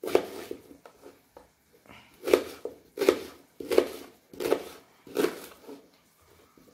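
Kitchen knife cutting raw plantain into large chunks on a plastic cutting board. There are about six separate cutting strokes, one at the start and then a run of them roughly a second apart, each a short knock of the blade through the flesh onto the board.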